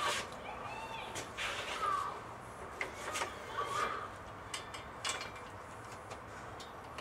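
Scattered light clicks and knocks of hand work in a car's engine bay, with a couple of short squeaks about two and three seconds in.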